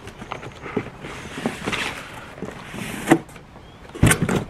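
Rustling and scraping of cardboard and packaging as a long black carry bag is pulled out of a long cardboard box, with a sharp knock about three seconds in and a louder thump near the end.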